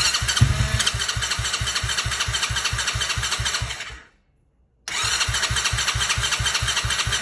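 Electric starter cranking the TaoTao T-Force's small engine in two tries, one of about four seconds and then, after a short pause, one of about two and a half seconds. It is a steady whirr with rapid, even compression pulses. The engine never fires: it won't start on its fuel.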